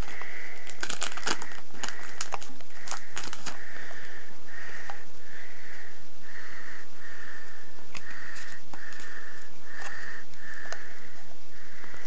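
A young child's heavy breathing close to the microphone, short hissy breaths in a steady rhythm of roughly one every three-quarters of a second. In the first few seconds the foil wrapper of a trading-card booster pack crinkles and tears as it is opened.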